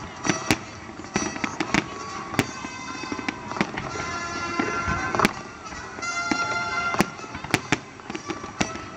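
Aerial fireworks shells bursting, a string of sharp bangs at irregular intervals with the loudest about five and seven seconds in, over music playing in the background.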